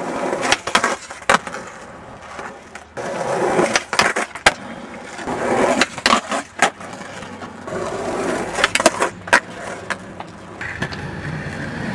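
Skateboard wheels rolling on concrete, broken by many sharp cracks and slaps from tail pops and landings.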